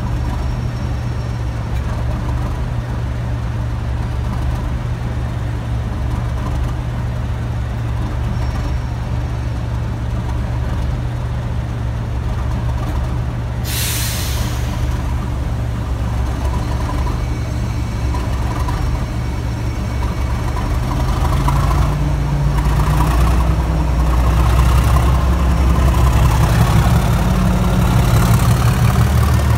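Class 37 diesel locomotive's English Electric V12 engine idling with a steady deep hum, with a short hiss of air about halfway through. About two-thirds in, the engine is opened up to pull away with its train: its note rises and grows louder, and a rising turbocharger whistle comes in near the end.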